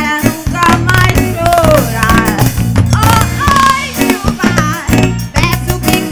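A woman sings a forró song into a microphone over a live band, with guitar, bass and drums keeping a steady, lively groove.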